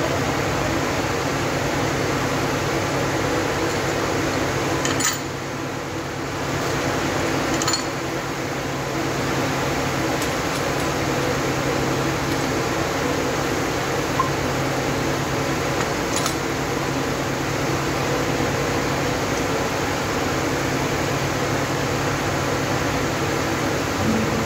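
A steady machine hum with rushing air noise, with a few light clicks.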